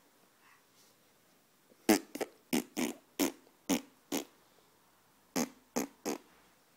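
A run of short, sputtering raspberry-like mouth noises made for fun: seven quick ones starting about two seconds in, then three more after a short pause.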